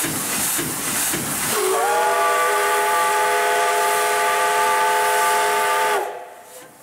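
P36 steam locomotive's whistle blows one long, loud blast of several tones at once, lasting about four seconds. It slides up slightly as it sounds and dips in pitch as it cuts off. This is the departure signal. Steam hisses before the whistle starts.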